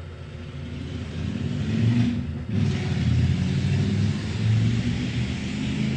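Wen 3420 variable-speed mini wood lathe's motor running and being turned up in speed, getting louder over the first two seconds, with a brief dip about two seconds in, then a steady hum and whir.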